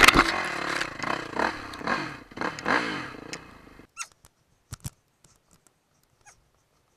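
Dirt bike engine revving up and down for about four seconds, then the sound cuts off abruptly, leaving only a few faint clicks.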